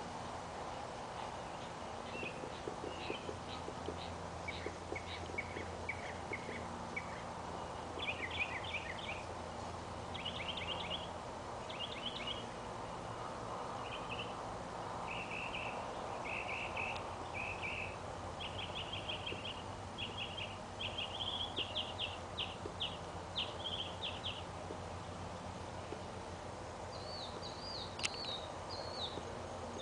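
A songbird singing a long run of short, varied phrases of repeated chirps and trills, over a steady low background hum. A single sharp click sounds near the end.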